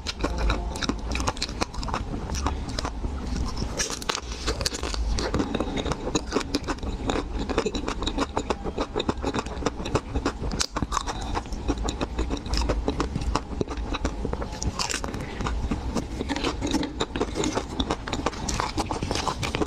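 Close-miked biting and chewing of a chocolate-coated Magnum ice cream bar, the hard chocolate shell crunching and crackling in quick, dense clicks without a break.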